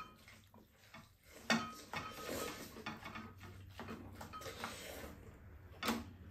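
Spoons and chopsticks clinking and scraping against bowls and a frying pan during a meal, with a sharp clink about a second and a half in and another near the end.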